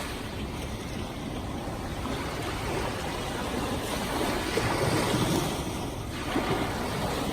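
Small ocean waves washing up on a sandy beach: a steady rushing wash that swells about four seconds in and again just after six seconds.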